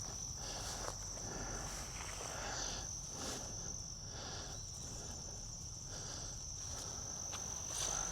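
Insects trilling steadily at one high pitch, with soft rustles recurring every second or so, like someone moving through brush.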